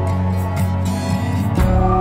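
Soft instrumental background music with sustained chords and a light regular tick; the chord changes about one and a half seconds in.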